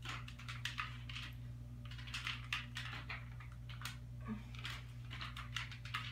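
Metal weight plates on plate-loaded dumbbells clicking and rattling in short, irregular clinks as they are curled up and lowered, over a steady low hum.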